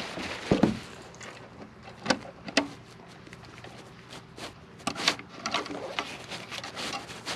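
Scattered knocks and clicks of camping gear being handled and unpacked, with a loud thump about half a second in.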